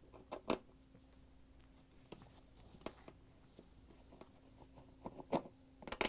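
A few faint, scattered clicks and taps as a Torx 25 screwdriver backs a screw out of a dishwasher door's metal frame. The sharpest clicks come about half a second in and again just after five seconds.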